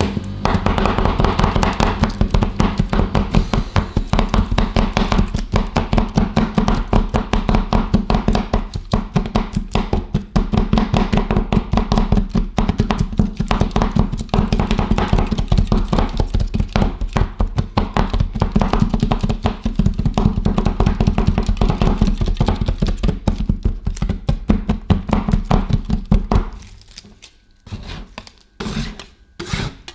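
Metal spatulas chopping rapidly on a cold steel ice cream pan, a fast run of knocks as the Twix is chopped into the ice cream base. The run stops near the end, leaving a few separate taps.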